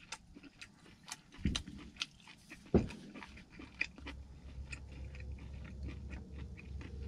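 Close-up chewing of steak: small wet clicks and crunches of mouth sounds, with two low thuds in the first three seconds. A steady low hum comes in about four seconds in.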